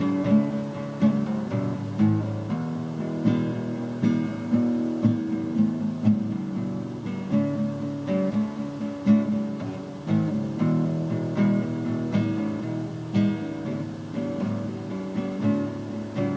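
Acoustic guitar strummed in a steady rhythm, playing a blues tune without singing.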